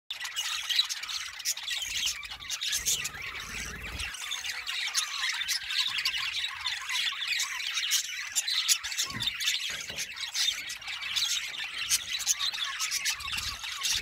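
A flock of budgerigars chattering and chirping without pause, many sharp high chirps overlapping.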